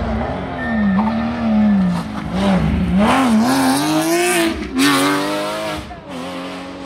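Porsche 911 rally car's flat-six engine accelerating past at close range, its pitch climbing and then dipping with each gear change. It is loudest about three to five seconds in, with a quick shift near the five-second mark, and fades as the car pulls away.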